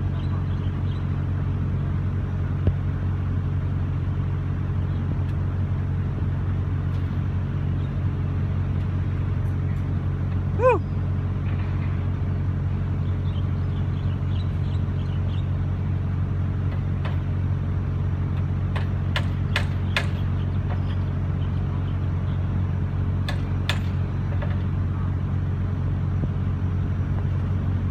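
Sany SY55C mini excavator's diesel engine running steadily at an even speed. A short squeal comes about ten seconds in, and a few sharp clicks come in the second half.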